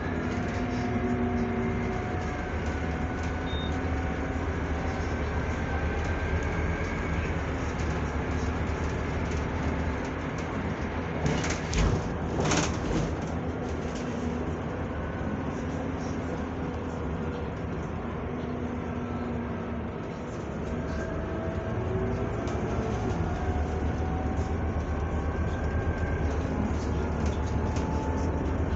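Inside a Scania Citywide CNG city bus under way: its gas engine and ZF Ecolife automatic gearbox run with a low rumble under steady tyre and road noise, and faint whining tones glide in pitch. A short cluster of knocks and rattles comes about twelve seconds in. Near twenty seconds the sound dips briefly, then a whine climbs and the noise builds again as the bus pulls.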